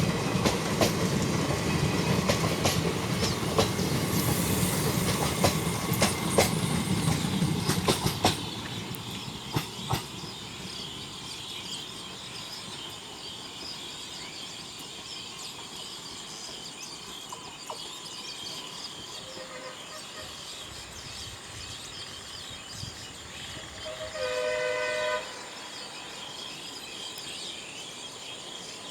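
Passenger coaches of an express train passing at speed, wheels clicking over the rail joints, until the last coach goes by about eight seconds in and the rumble drops away. Near the end a train horn sounds once for about a second.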